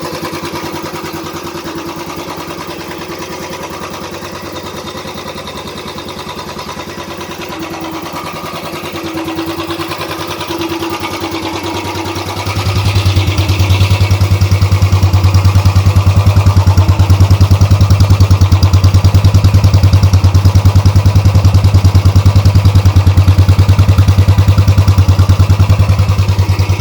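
Royal Enfield Classic 350 single-cylinder engine running steadily at idle with an even exhaust beat. About halfway through it becomes much louder and stays at that level.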